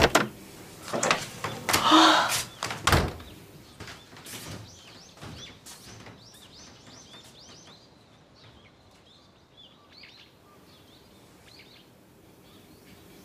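A door being handled, with several sharp knocks and thuds and a short scrape over the first three seconds. After that, small birds chirp faintly, many short high calls.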